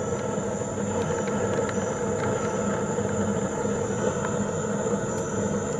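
A steady mechanical hum and hiss with a thin high whine, unchanging in level.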